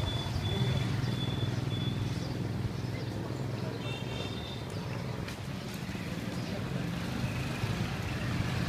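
Outdoor background noise: a steady low rumble, with a faint thin high tone in the first couple of seconds and again briefly about four seconds in.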